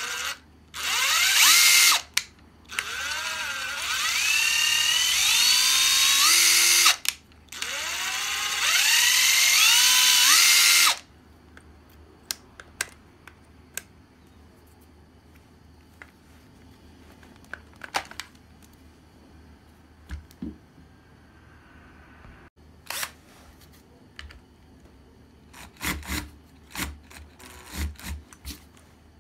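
Panasonic EZ75A7 brushless cordless impact driver run free with no load, three trigger pulls in the first eleven seconds. Each time the motor whine rises in pitch as it speeds up, then holds: the tool runs normally. Afterwards only a few faint clicks.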